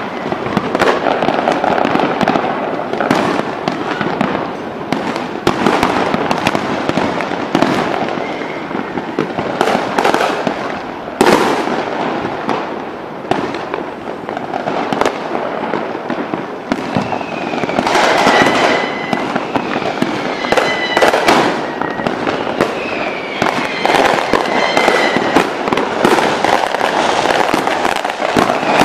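Aerial fireworks display: a dense, continuous barrage of shell bursts, with sharp bangs over steady crackling. In the second half, several high gliding whistles come through the barrage.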